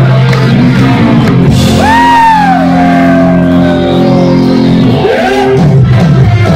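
Rock band playing loud and live through a PA: electric guitar over bass and drums. About two seconds in, a long high note swoops up and slides slowly down over the next two seconds, and a shorter rising note follows near the end.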